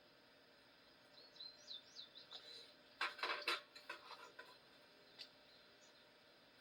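A small bird chirping in short, high notes, followed about three seconds in by a quick cluster of sharp clicks and light rattles, with one more click a couple of seconds later.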